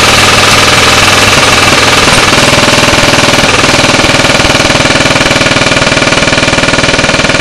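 Homemade electric airsoft minigun firing full-auto in one long unbroken burst. Its shortstroked version 3 gearbox cycles at about 21 shots a second while a cordless 18-volt drill motor spins the barrel cluster.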